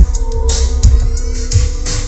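Electronic music with heavy bass kicks played loud through a Philips NX9 sound system's floor speakers and woofers.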